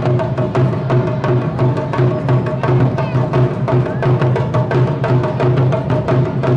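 Music with a fast, steady percussion beat of sharp clicking strikes over sustained tones.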